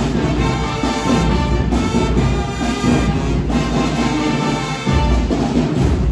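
Loud band-style music with brass and heavy drums, played for a dance routine.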